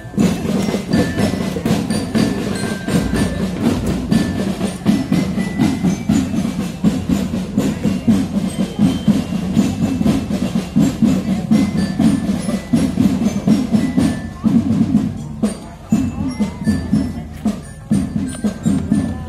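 Marching drum band playing: rapid drum beats throughout, with short high bell-lyre notes ringing over them.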